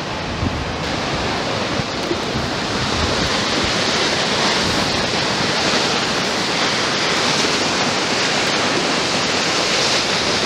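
Water discharging from a dam and crashing down far below, a steady rushing roar that grows a little louder about three seconds in.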